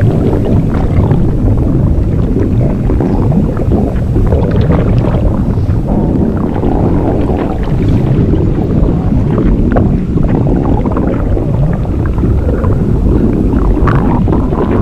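A made-up sound effect of a body swelling up with juice: continuous loud low rumbling and sloshing, with many short creaks and gurgles over it.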